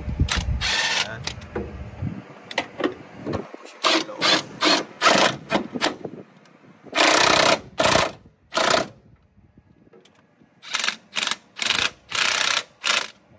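Pneumatic impact wrench running on the engine mount bolts in repeated short bursts, with a pause of about two seconds past the middle.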